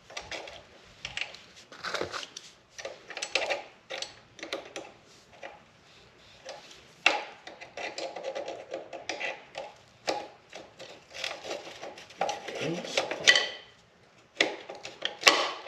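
Metal hand tools clinking, tapping and scraping against the footpeg bracket and pivot pin of a Suzuki DR-Z400S while the pin is worked out, in irregular clicks with short pauses.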